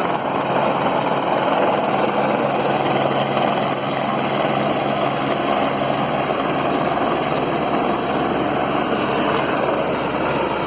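Police rescue helicopter running steadily, its engine and rotors making a continuous loud noise.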